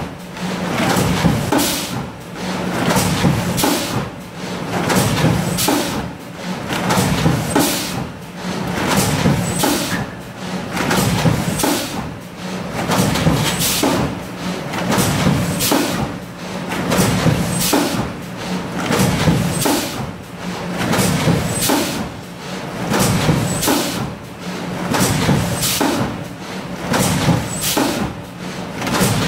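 GN800 thermoforming machine running in production, its forming and stacking cycle swelling and falling about every two seconds with sharp clicks over a steady hum, as formed clear plastic containers are stacked.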